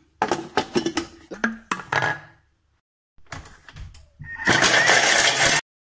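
Clicks and knocks as the blender jar and lid are handled and closed. About four seconds in, the stainless-steel blender runs loud for about a second and a half, chopping a small piece of raw horseradish root, then cuts off suddenly.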